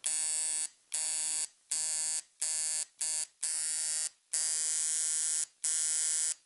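Two-coil tattoo machine buzzing in eight short runs of about half a second to a second each. Each run starts and stops cleanly as the homemade footswitch pedal is pressed and released, showing the pedal makes good contact.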